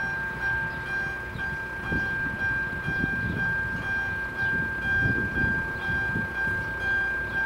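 Level crossing warning signal sounding while the crossing is closed: a steady high tone with a fainter lower one, and a faint short pulse repeating less than once a second. An irregular low rumble lies underneath.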